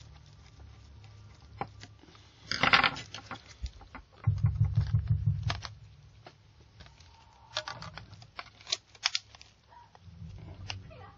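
Small clicks and taps of a Sony Ericsson WT19i being reassembled by hand: screwdriver and plastic housing handling, with a rustle early on and a short low rubbing noise in the middle, then plastic clicks as the back cover is pressed into place near the end.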